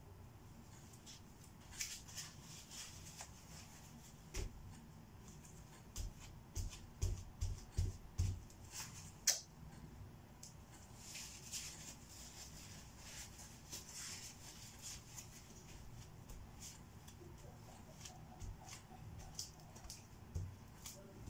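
Faint hand-work sounds on a painted canvas: paper or masking rubbed and rustled against the surface, with scattered light clicks. A quick run of soft taps and knocks comes about six to eight and a half seconds in.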